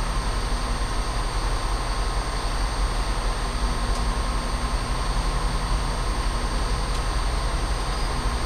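Diesel train running steadily at a station, a low engine drone with a constant hum that does not change.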